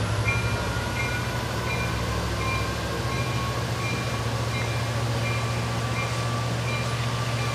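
Diesel locomotive of a Pacific Surfliner passenger train running with a steady low engine drone. A short high-pitched beep repeats about every two-thirds of a second over it.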